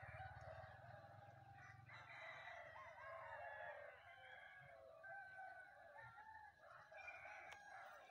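Several roosters crowing, their calls overlapping one another, with a low hum in the first two seconds.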